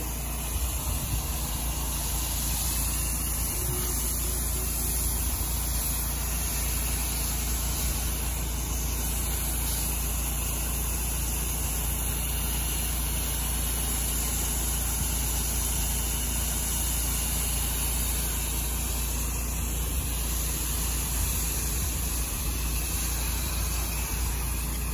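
An 8 GPM pressure washer runs steadily while its wand sprays water in a continuous hiss.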